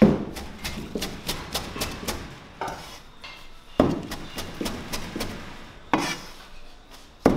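Parsley being chopped on a chopping board with a large curved chopping knife: quick knocks of the blade, about four a second, with a few heavier thumps.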